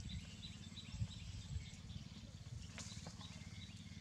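Outdoor ambience: a short, high chirp repeated steadily about three times a second over a low rumble, with a few faint clicks.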